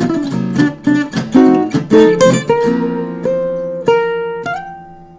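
Hollow-body archtop guitar being plucked: a quick run of notes and chords, which slows after about two and a half seconds into a few single notes that are left to ring and fade away.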